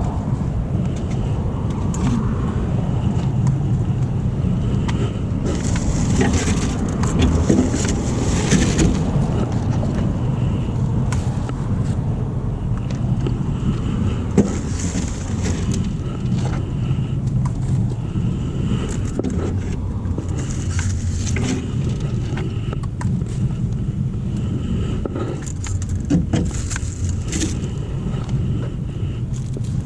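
Steady low rumble with scattered rustling and clicking as litter is pulled out of a hole with a litter grabber.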